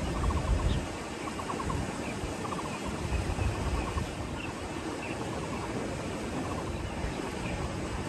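Outdoor field ambience with wind buffeting the microphone in low gusts, loudest in the first second and again about three seconds in. Over it, short rapid rattling calls repeat every second or so, and a few faint high chirps are heard.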